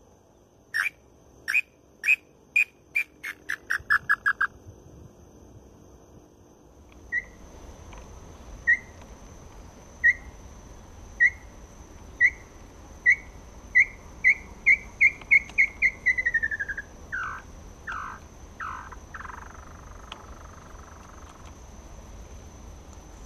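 Hand-blown tinamou (inhambu) lure call giving two runs of clear whistled notes, used to call in a tinamou. Each run starts slowly, speeds up and falls in pitch at the end. The second run is longer and ends with three lower downslurred notes.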